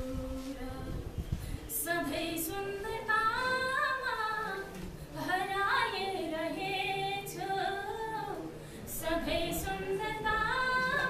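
A woman singing a Nepali poem unaccompanied, in long melodic phrases with short breaks between them.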